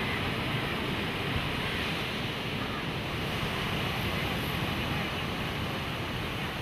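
Surf breaking and washing up a sandy beach: a steady, continuous wash of waves.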